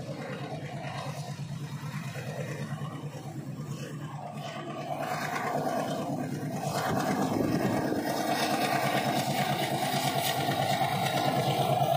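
Alco-built Indian Railways WDM-3 series diesel locomotive engine running under load with a fast, even throb. It grows louder about halfway through as the train comes nearer, and a steady whine comes in over the throb.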